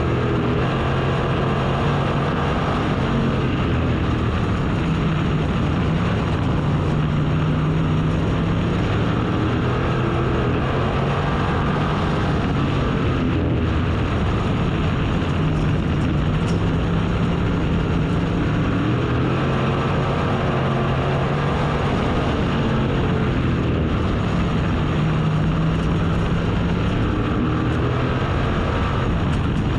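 Race car engine running at racing speed. Its pitch climbs and falls back over and over, about every six or seven seconds, as it is driven hard down the straights and eased off for the turns.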